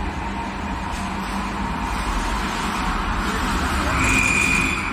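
TSJ-1000 concentric double-axle mixer running empty, its agitator shaft turning in the stainless steel tank with a steady low machine rumble. A brief high-pitched tone rises above it about four seconds in.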